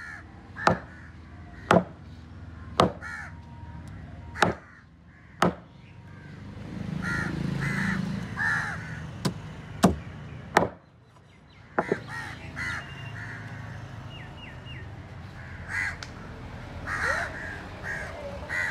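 A large curved knife chopping fish on a wooden cutting table: sharp chops at uneven intervals, about nine in all, mostly in the first two-thirds. Crows caw again and again throughout.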